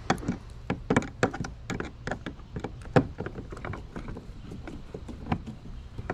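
Irregular knocks and taps of a wooden shipping board and its fittings being handled against the hard plastic hull of an Old Town Sportsman 120 PDL kayak during unpacking. The sharpest knock comes about three seconds in.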